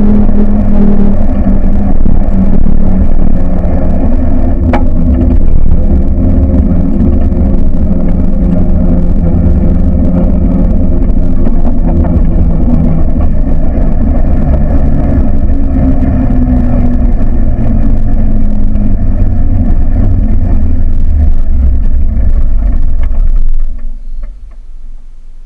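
A buggy's engine running steadily under a heavy low rumble. Near the end the sound drops away sharply.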